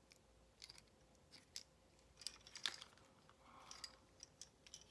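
Faint, irregular plastic clicks and ticks from a Transformers Studio Series Megatron action figure's parts and joints being moved and snapped into place by hand, the loudest click a little under three seconds in.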